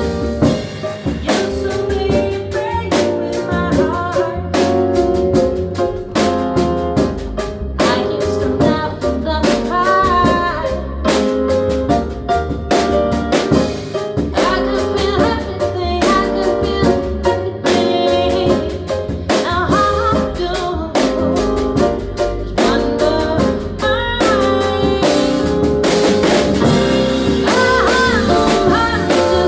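Live jazz trio performing a song: a drum kit with rimshots keeps time under other instruments and a singer's voice.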